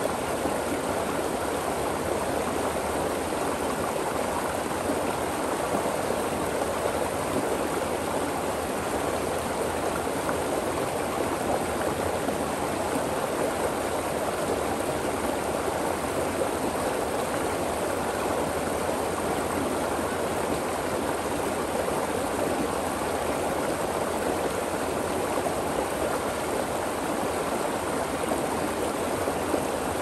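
Stream water flowing over and between rocks: a steady, even rush of water with no breaks.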